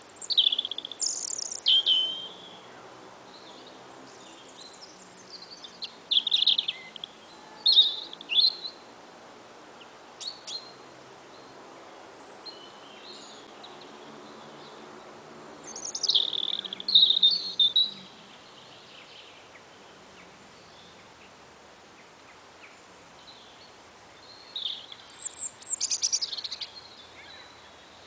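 Wild songbird song: short, high, fast phrases of about two seconds each, every eight seconds or so, each sliding down from a high start, over a quiet outdoor background.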